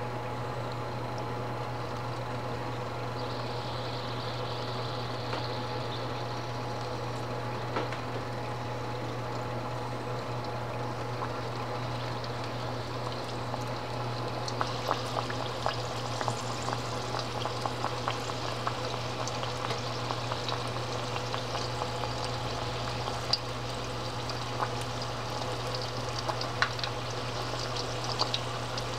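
Tapioca dough patties (cireng) deep-frying in hot oil in a wok: a steady sizzle over a constant low hum. About halfway through it turns busier, with many sharp crackles and pops as more patties are in the oil.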